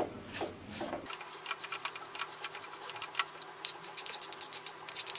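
Spoon clicking and scraping against a metal kadhai while stirring dry desiccated coconut, the light clicks coming faster in the last second and a half.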